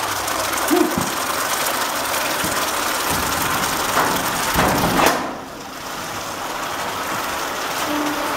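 Red-hot 4140 steel anvil block boiling in a tub of super quench (brine with dish soap and Jet Dry), a steady bubbling and steaming hiss that shows the block is still very hot. A few louder knocks and scrapes come about four to five seconds in.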